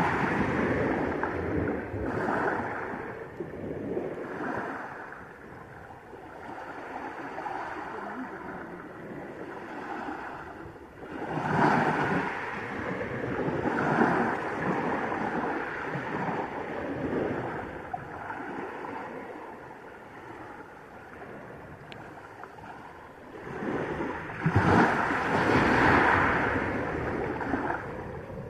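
Small sea waves breaking and washing up a pebble beach, swelling and fading several times, loudest about twelve seconds in and again near the end.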